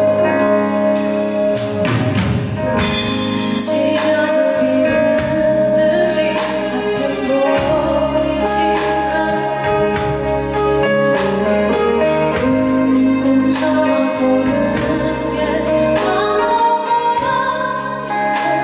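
A woman singing a Korean ballad live into a handheld microphone, over instrumental accompaniment.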